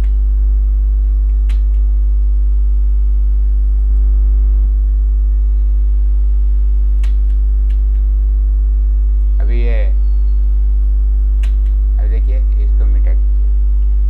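Loud, steady electrical mains hum with a stack of even overtones, broken only by a few faint clicks and two short vocal sounds, one about nine and a half seconds in and one around twelve seconds.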